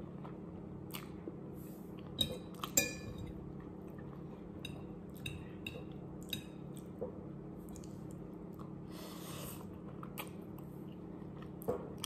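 Mukbang eating sounds: chewing instant noodles, with a metal fork scraping and clinking against a ceramic plate. Two sharper clinks come about two to three seconds in, and another near the end, over a steady low hum.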